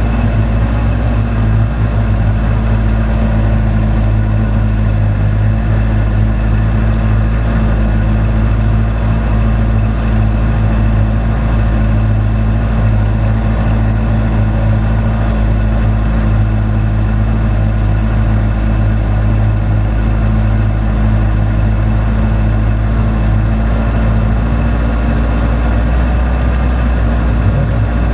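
Formula Two single-seater's turbocharged four-cylinder engine idling steadily, heard from the cockpit, with no revving.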